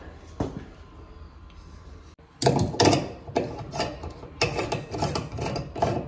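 A Delta PosiTemp shower cartridge and its retaining nut being worked onto a brass valve body by hand. After about two seconds of quiet, a run of short, irregular rubbing and scraping strokes begins as the parts are seated and threaded on.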